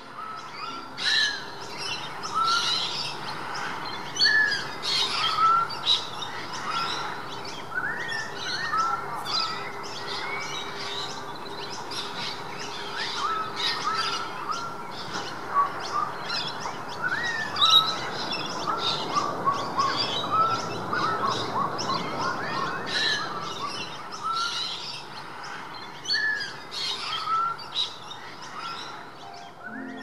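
Many birds chirping and calling at once, short sweeping notes overlapping one another, busiest a little past the middle.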